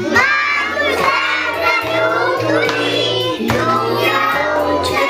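A group of young children singing a song together over a recorded backing track with a steady bass line.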